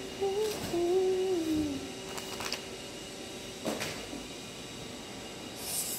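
A girl humming a short, wavering tune, followed by a few light handling clicks, and a steady hiss that starts near the end.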